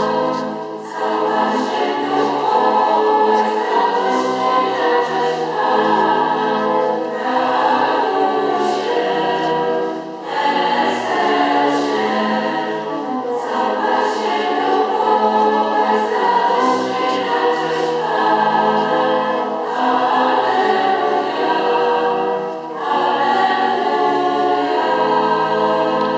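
Choir singing a sacred song in long held chords, phrase after phrase, with brief dips between phrases.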